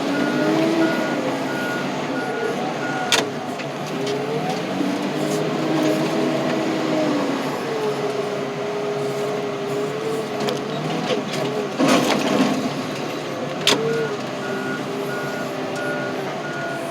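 Ford Aspire's small four-cylinder engine revving hard, its pitch rising and falling as it is pushed through the gears in an attempt to blow the engine. A reversing alarm beeps near the start and again near the end, with a few sharp knocks in between.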